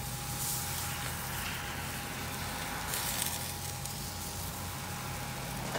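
Sizzling from hot charcoal under sauced chicken on a drum smoker grate as barbecue sauce is brushed on, over a faint steady hum.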